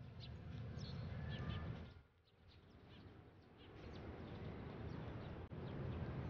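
Outdoor ambience: small birds chirping in short, scattered calls over a low, steady rumble. The rumble dips briefly about two seconds in.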